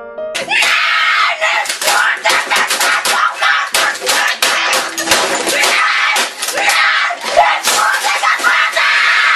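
A boy screaming in a frenzied rage, his shrill yells mixed with many sharp hits as he bangs on a computer keyboard and desk. It cuts in about half a second in, right after the last notes of an electric piano tune.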